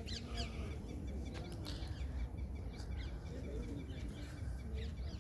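Birds chirping: short, quickly falling high calls about once a second, over a steady low rumble.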